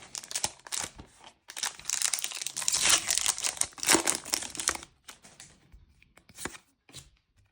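A foil booster-pack wrapper crinkles and tears as it is ripped open. After about five seconds this gives way to softer scattered ticks and rustles of the cards being handled.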